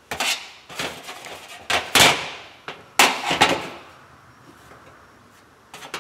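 Hard knocks and clatter of a metal fuel pump housing against a sheet-metal parts tray as its top cover is worked loose by hand. There are about half a dozen sharp knocks over the first three and a half seconds.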